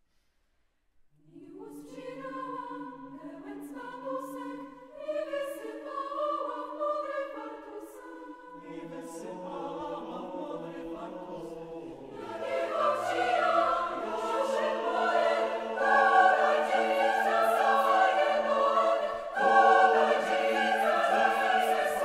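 Mixed chamber choir singing a Polish folk-song arrangement a cappella. It comes in after a brief silence about a second in, softly at first, then swells fuller and louder about halfway through.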